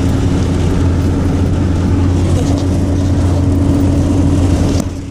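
A motor vehicle running steadily, a loud low engine hum with a steady droning tone; it drops off suddenly near the end.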